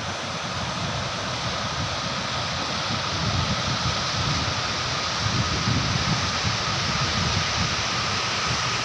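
Water of the Chenab River rushing: a steady, even wash of water noise, with some unsteady low rumble underneath.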